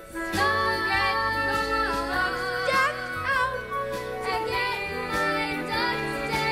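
Musical theatre song: singing over an instrumental accompaniment, with sustained and gliding sung notes.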